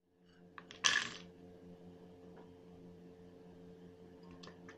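Nuts dropped into a glass mixer-grinder jar, clattering against the glass and blade in a quick burst about a second in, with a couple of lighter clicks near the end.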